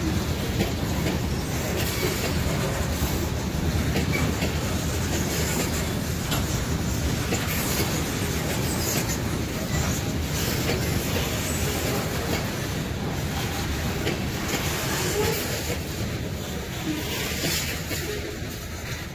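Loaded covered hopper cars of a freight train rolling steadily past, steel wheels clacking over the rail joints in a dense rumble. The last car goes by near the end and the sound eases off.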